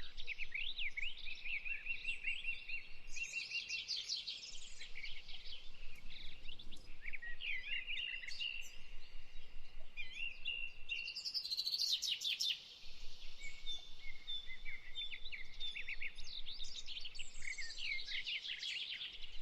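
Birds chirping and twittering in quick, continuous runs of short high notes, with a brief lull about two-thirds of the way through.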